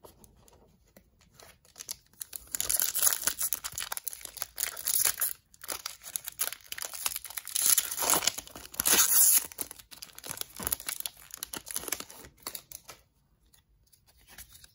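Foil wrapper of a Magic: The Gathering booster pack being torn open and crinkled by hand, in irregular spells from about two seconds in until near the end.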